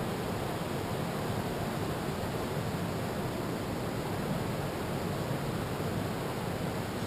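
Steady wash of ocean surf and wind: an even rushing noise with no separate wave crashes standing out.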